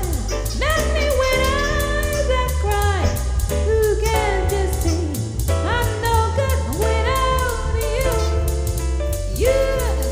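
Pop song playing: a sung melody over a heavy bass beat.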